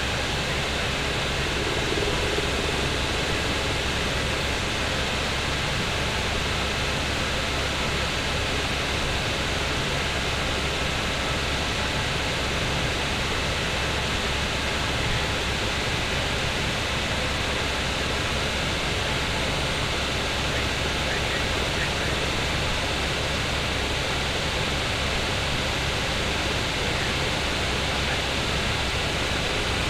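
Helicopter cabin noise in level flight: a steady rush of engine and rotor noise with a low drone underneath, heard from inside the cabin.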